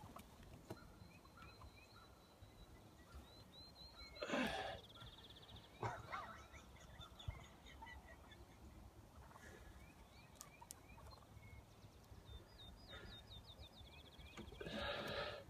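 Wild turkey gobblers gobbling twice, about four seconds in and again near the end, with fainter chirping calls in between.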